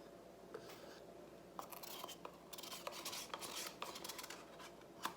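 Faint scraping and rubbing with small clicks, a stir stick working against a plastic cup while the last of the pink acrylic paint is scraped out.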